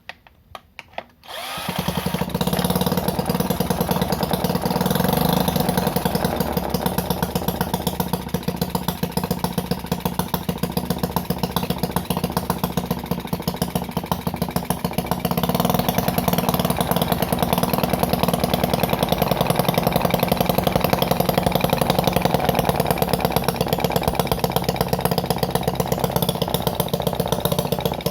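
Homemade mini four-stroke engine built from a refrigerator compressor, catching after a few clicks and then running with a rapid, even firing beat; it gets louder about halfway through.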